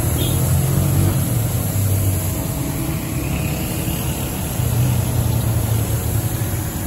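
Compressed-air paint spray gun hissing steadily as it sprays colour onto a car's door sill, over a low motor hum that swells and eases.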